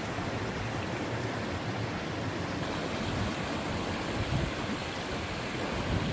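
Twin small waterfalls on a mountain stream: water pouring and splashing in a steady, even rush.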